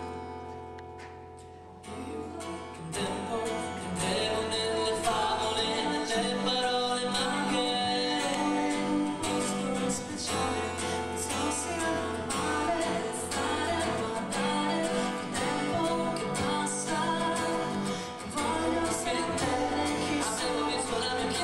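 Live rock band with drums and guitars playing a song: a held chord opens it, the full band comes in over the next few seconds, and a voice sings over it.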